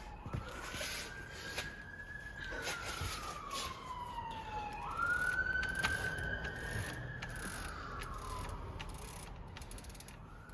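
A distant emergency-vehicle siren wailing, its single tone slowly rising and falling several times, over light scattered clicks from the bike's chain being turned by hand as it is lubed.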